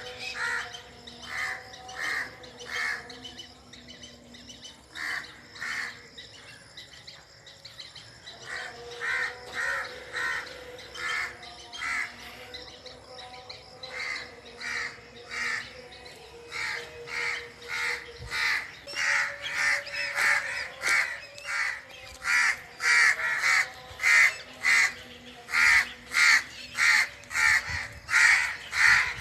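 Birds giving short calls in a rapid, even series, about two a second, pausing briefly early on and growing louder toward the end. Fainter steady calls sound underneath.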